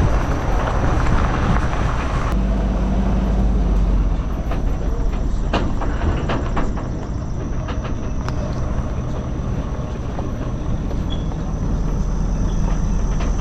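A vehicle towing a hitched trailer drives along, with a steady low engine and road rumble. Scattered rattles and knocks come through it.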